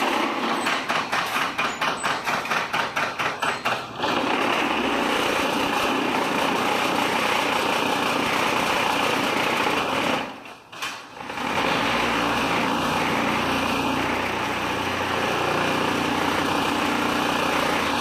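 Concrete block making machine running, its vibrating mould table shaking the concrete with a loud mechanical rattle. It pulses about four times a second at first, then runs steady, drops out briefly about ten seconds in, and resumes.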